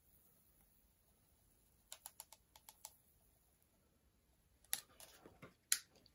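Faint plastic clicks and taps from a hand-held WWScenics Pro Grass Micro static grass applicator being shaken and handled: a quick run of light clicks about two seconds in, then a few louder knocks near the end.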